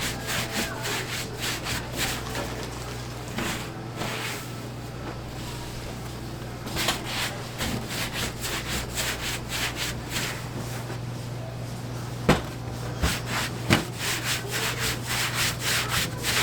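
Rhythmic rubbing strokes on a wooden work surface, about three a second, in three runs, with two sharp knocks near the end. This is typical of kkwabaegi dough being hand-rolled into strands. A steady low hum runs underneath.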